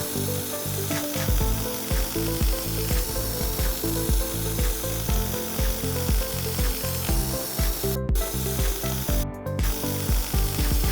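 Background music with a steady beat and a shifting bass line, cutting out briefly twice near the end.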